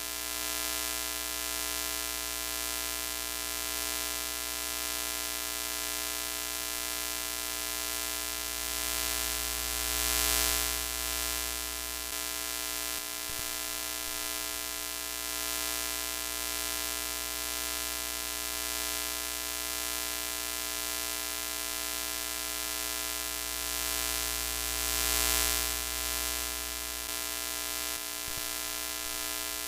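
Broken-TV static sound effect: a steady hiss with a buzzing hum made of many steady tones. It swells louder briefly twice, about ten seconds in and again later on.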